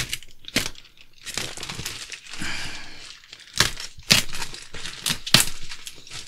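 Plastic mailer bag being slit with a utility knife and torn off a cardboard box: crinkling and tearing plastic, broken by several sharp snaps.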